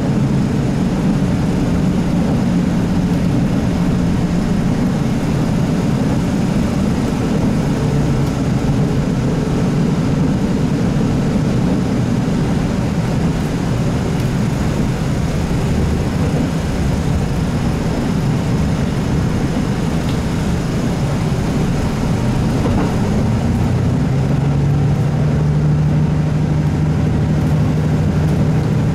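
Kiha 75 series diesel railcar running between stations, heard from inside the passenger car: the Cummins diesel engine's steady drone over a constant wash of running noise. The engine note rises a little about 23 seconds in and holds there.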